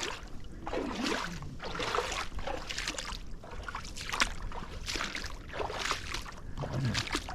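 Bare feet wading and splashing through shallow flooded trail water, one sloshing step about every second.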